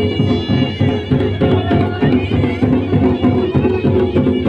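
Traditional folk music: a held, wavering reedy wind melody over a fast, steady drumbeat.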